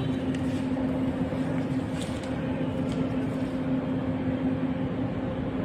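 Steady machine hum with one constant low tone over even background noise.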